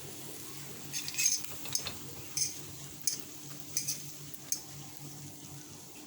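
A metal utensil clinking and scraping against cookware while stirring food, about seven sharp clinks at uneven spacing in the first two thirds, over a low steady hum.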